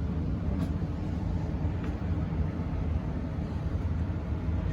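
Steady low background rumble, with a couple of faint clicks.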